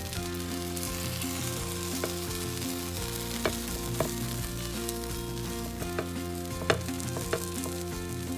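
Pizza dosa (dosa batter with cheese and vegetables) sizzling steadily in a pan on low heat, with a few sharp crackles or ticks along the way.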